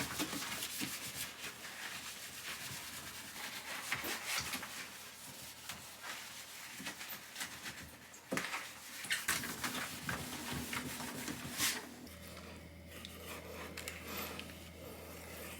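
Rubbing and wiping sounds of household cleaning, scattered with light clicks and knocks. A low steady hum comes in about three-quarters of the way through.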